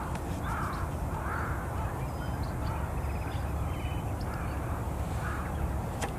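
A bird cawing over and over, about five harsh calls a second or so apart with a short gap in the middle, over a steady low rumble.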